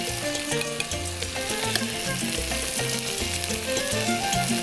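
Butter and fat sizzling and crackling steadily in a frying pan around flour-coated pieces of meat piccata as they are lifted out with tongs. Background music with a stepping bass line plays under it.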